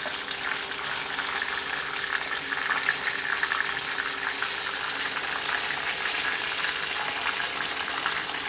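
Masala-coated kingfish steaks shallow-frying in hot oil in a pan: a steady, dense crackling sizzle of many fine pops. The second side is frying over a low flame as the coating crisps.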